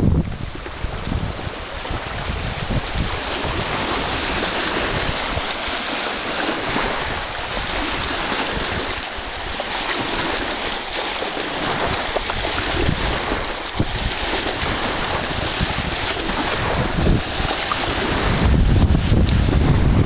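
High wind buffeting the microphone over choppy open water: a steady rushing hiss of wind and small waves, with heavier low rumbling gusts at the start and again near the end.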